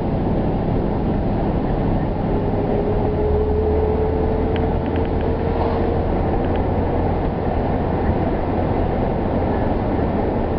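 Steady engine and road noise inside a moving car's cabin, with a faint slowly rising hum in the middle.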